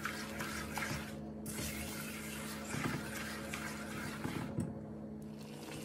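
Silicone spatula stirring a thick peanut butter and sugar mixture in an aluminium pot, soft irregular scraping and stirring, to keep it from burning. A steady low hum runs underneath.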